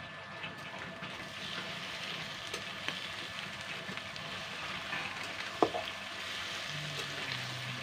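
Raw chicken pieces sizzling in hot oil in a kadhai over a wood fire, a steady frying hiss that thickens once the meat is in, with a spatula scraping and stirring. A single sharp clink about five and a half seconds in.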